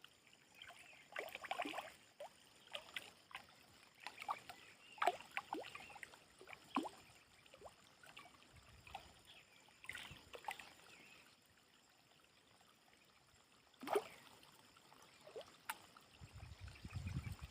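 Faint, irregular small water sounds: scattered splashes, plops and trickles, with a louder splash about 14 seconds in and a low rumble near the end.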